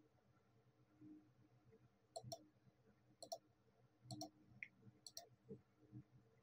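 Faint computer mouse clicks, about four, roughly a second apart, each a quick press and release, as points of a knife-tool cut are placed.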